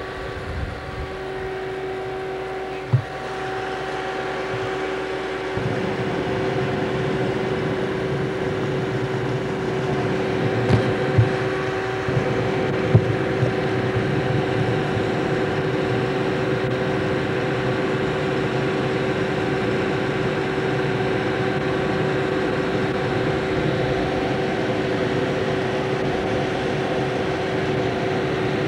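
An engine running steadily with a constant hum, growing fuller and louder about five seconds in, with a few brief knocks along the way.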